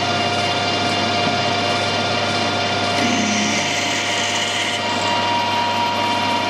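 Metal lathe running steadily while a 5.5 mm drill in the tailstock chuck is fed into stainless steel, drilling the tapping hole for a 1/4 UNF thread. The drill starts cutting about three seconds in, adding a hiss over the machine's steady hum, and a steady whine joins near the end.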